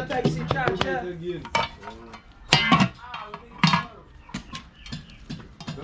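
Metal utensils knocking and clinking against dishes or pots, a handful of sharp clacks with the loudest near the middle, with people talking in the background in the first second.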